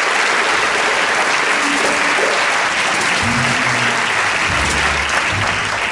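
Audience applauding steadily, with a few low plucked double bass notes starting about three seconds in.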